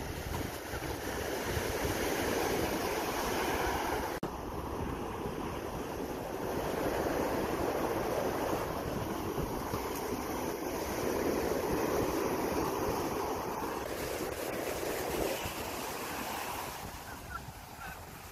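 Surf breaking and washing up the sand at the water's edge, swelling and easing every few seconds, with wind rumbling on the microphone.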